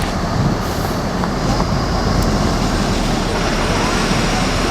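Diesel bus engines and traffic noise, a steady low rumble.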